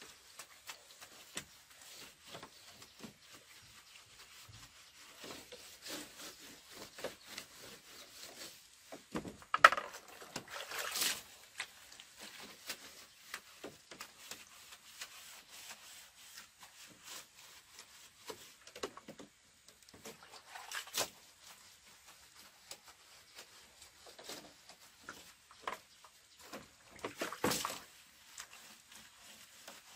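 Irregular light knocks, clicks and rubbing of objects being handled by hand, with one sharp knock about ten seconds in and a few brief scraping sounds.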